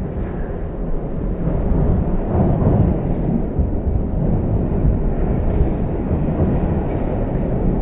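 Hankyu Railway electric train running on the line, a steady low rumble of wheels on rail that swells slightly a couple of seconds in.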